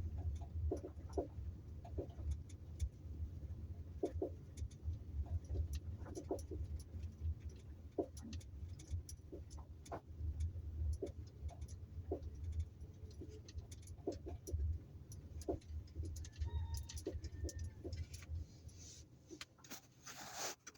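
Kia Optima driving on a dirt road, with irregular knocks and rattles from the rear over a steady low road rumble. These are the unexplained rear knocks the owner is asking for help with. A brief squeak comes about sixteen seconds in, and a loud hissing rush near the end.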